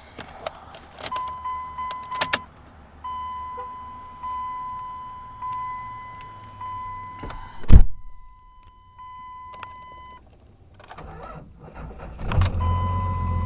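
A dashboard warning chime dings about once every second and a quarter, and a single loud thump comes near the middle. About a second before the end, the 2001 Dodge Ram 2500's Cummins inline-six turbo-diesel cranks and starts, settling into a low idle while the chime sounds again.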